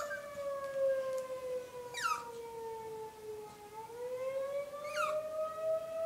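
Tornado warning siren wailing, its pitch sliding slowly down and then back up. A Chihuahua gives two brief, high, falling yelps, about two seconds and five seconds in.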